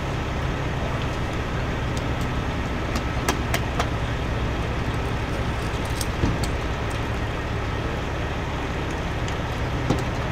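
A motor vehicle's engine running steadily, with a few sharp clicks or knocks over it: a cluster about three to four seconds in, one around six seconds and one near the end.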